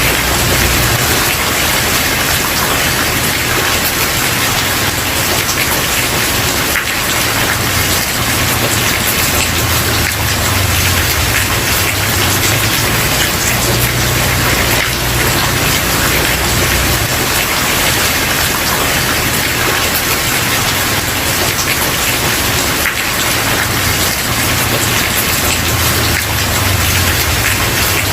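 Steady rain falling on a wooden porch: a dense, even patter of drops, with a low rumble underneath that swells and fades.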